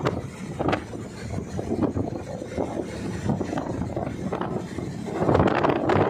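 Wind buffeting the microphone aboard a wooden boat under way on open water, over the boat's steady running noise. The wind gusts louder about five seconds in.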